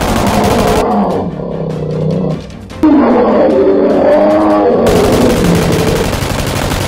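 Tyrannosaurus rex roar sound effect: two long, loud roars, the second starting about three seconds in, louder, and fading out near the end.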